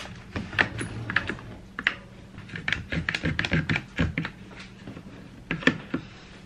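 Large one-handed trigger bar clamps being worked and ratcheted tight across glued shelf boards: a run of sharp plastic-and-metal clicks, quickest in the middle, with a few more near the end.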